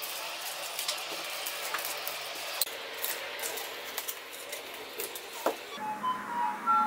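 Scissors snipping through paper strips, fast-forwarded into a rapid run of clicks and snips over a hiss. About a second before the end this gives way to music with short, light notes.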